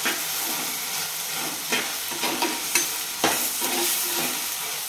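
Chopped tomatoes and onions sizzling in oil in a clay pot, stirred with a steel spatula that scrapes and knocks against the pot a few times.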